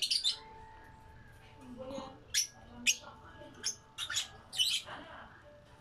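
Peach-faced lovebirds calling: a scatter of short, shrill chirps and squawks, several in quick succession in the second half.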